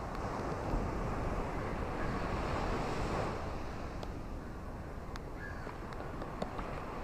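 Ocean surf: a wave swells and washes in over a few seconds, then eases back.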